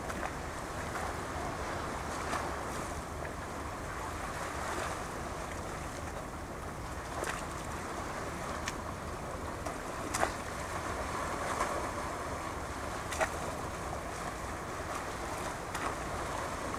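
Steady hiss of wind and small waves on open water, with a few short sharp clicks scattered through.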